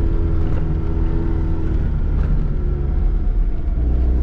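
Zastava Yugo's four-cylinder petrol engine running steadily, heard from inside the car's cabin as it drives along a dirt track. The engine note eases a little lower about halfway through.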